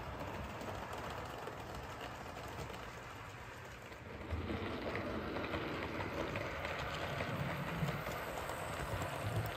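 On30 model steam locomotive and its log cars running on track: a steady rolling rumble of wheels on rail and the running motor, which gets louder about four seconds in.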